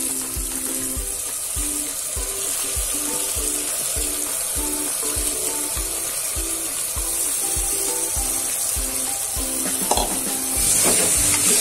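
Sizzling as washed rice and lentils go into hot oil and sautéed vegetables in a pressure cooker. The sizzle gets louder near the end. Background music with a steady beat plays throughout.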